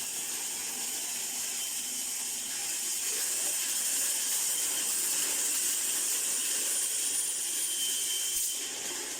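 Automatic mesh welding machine running with a steady hiss. It swells slightly about three seconds in, and faint thin high tones come and go near the end.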